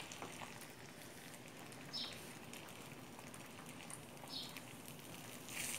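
Faint, steady sizzle of beaten eggs frying in oil in a stainless steel pan, with light strokes of a wooden spatula through the eggs.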